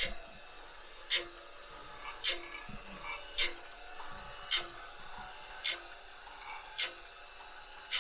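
Wood-Mizer band-saw blade sharpener running: a sharp click about once a second in an even rhythm over a steady hum.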